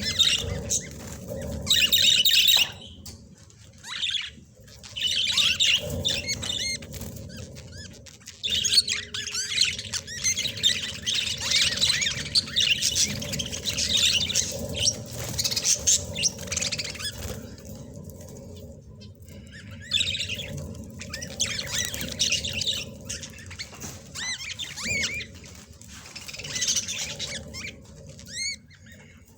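Budgerigars chirping and chattering in bursts of quick high warbled notes, with short pauses between bursts.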